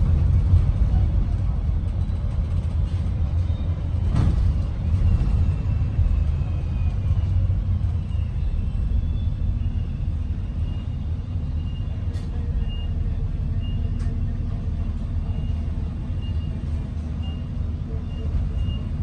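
ADL Enviro 400 MMC double-decker bus running, heard from inside the passenger cabin: a steady low engine and road rumble with a few short clicks. From about halfway through a faint high-pitched tone pulses roughly once a second over the rumble.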